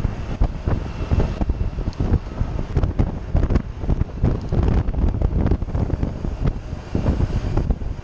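Wind buffeting the microphone of a camera on a mountain bike ridden at speed, an uneven gusty rush.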